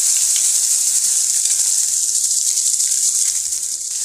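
Ground onion-and-garlic paste sizzling as it hits hot oil tempered with mustard and cumin seeds in a steel kadai: a steady high hiss that eases slightly near the end.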